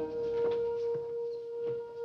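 Film score music: a single sustained note held steady over quieter orchestral tones.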